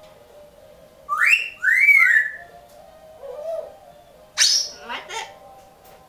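Double yellow-headed amazon parrot whistling: two loud whistles about a second in, the first rising and the second rising then falling. A softer low warble follows, then a short, sharp call a little past the middle.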